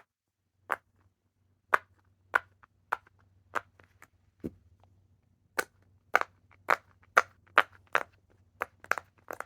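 A handheld fidget toy clicked over and over with sharp, snappy clicks, about two a second with uneven spacing.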